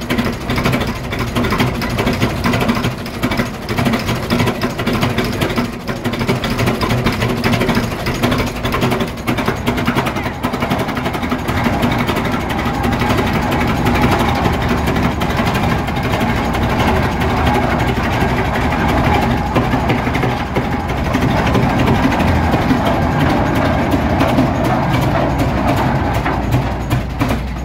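A heavy engine running steadily at a low, even beat, growing a little louder in the second half.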